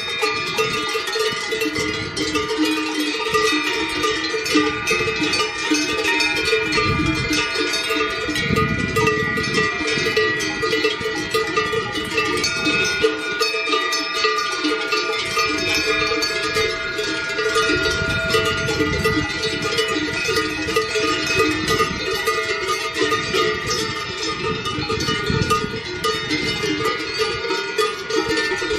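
Cowbells on grazing cattle ringing continuously, many bells clanging at once and overlapping.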